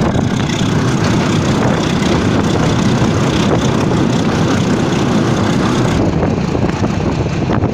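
Passenger train running along the track, heard from the carriage roof: a steady rumble and rattle of the moving train.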